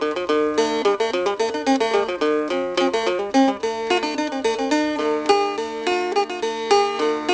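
Instrumental background music: a plucked string instrument playing quick runs of notes.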